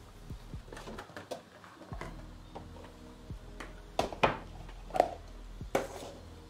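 Kitchenware being handled: a scatter of small knocks and clinks, with four sharper knocks in the second half, over a faint steady low hum.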